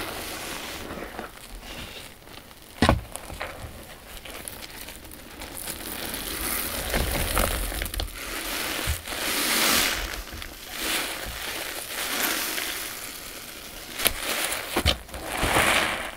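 Sponges loaded with a powdery, pasty mixture squeezed by hand, each squeeze a swelling crackly squelch that fades again; a single sharp click about three seconds in.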